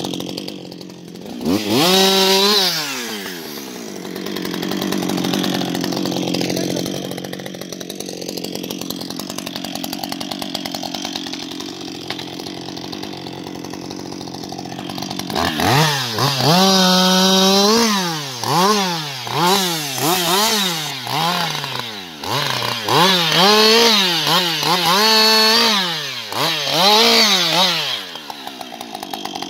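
Husqvarna 560XP single-cylinder two-stroke chainsaw, revved up briefly near the start and then running low. About halfway it goes to full throttle and holds there, then revs up and down about once a second before dropping back near the end.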